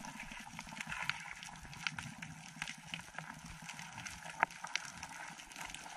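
Underwater sound recorded at a reef: irregular sharp clicks and crackles over a steady hiss and a low rumble of moving water. One click about four seconds in is louder than the rest.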